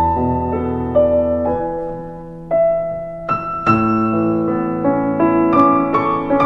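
Background piano music: a slow melody of struck, ringing notes and chords over held low bass notes.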